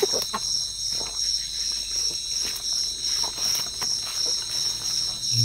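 A chorus of insects calling steadily at several high pitches, one of them pulsing about three times a second. Under it are faint rustles of footsteps through undergrowth.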